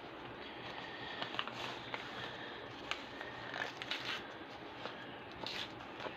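Faint rustling and light clicks of trading cards and their plastic packaging being handled, a few scattered ticks and crinkles.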